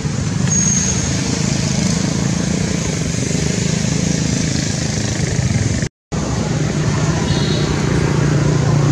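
Steady background noise of motor traffic, with a low engine hum that holds steady after the sound cuts out briefly about six seconds in.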